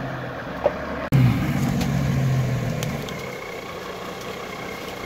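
Off-road 4x4's engine running steadily as it sits in icy water and mud, growing quieter about three seconds in.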